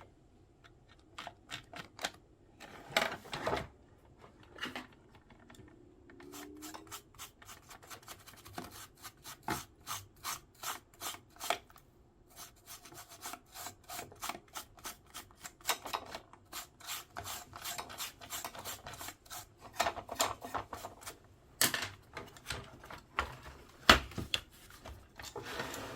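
Hands working on an opened vintage printing calculator's parts: runs of short rubbing and scraping strokes with clicks, several a second, with a few louder knocks near the end.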